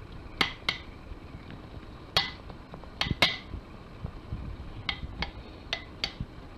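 A spatula knocking against a fluted ceramic tart dish while shredded kanafeh (kataifi) dough is pressed down into it to take the dish's shape: about nine sharp, briefly ringing clinks at uneven intervals, several in quick pairs.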